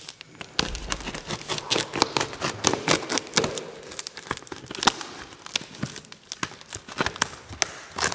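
Plastic wrapping and tape on a cardboard shipping box crinkling and rustling as hands open it, with many sharp crackles and taps.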